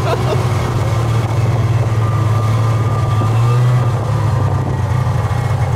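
Snowmobile engine running steadily with a constant low hum, getting slightly louder a little past the middle.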